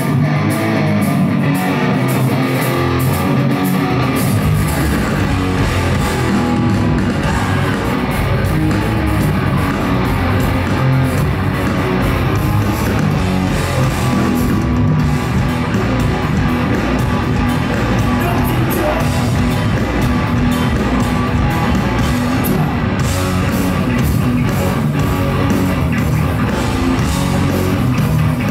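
Live hardcore punk band playing loud, with distorted electric guitars, bass guitar and a drum kit driving steadily throughout.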